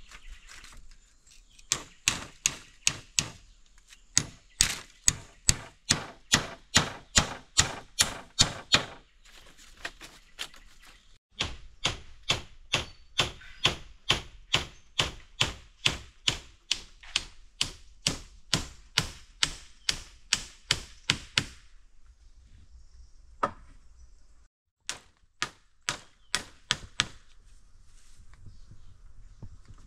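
A blade chopping into bamboo: long runs of sharp, evenly paced strokes, about three a second, broken by a couple of pauses, with a few last strokes near the end.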